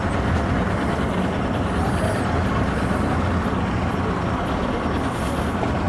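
Boat outboard engine idling with a steady low hum as the boat comes alongside the dock.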